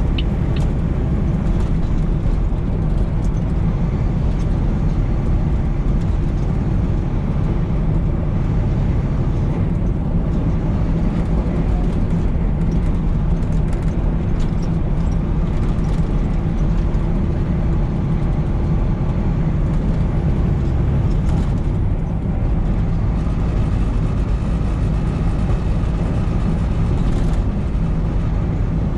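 Semi truck cruising on the highway, heard from inside the cab: a steady engine drone with road and tyre noise.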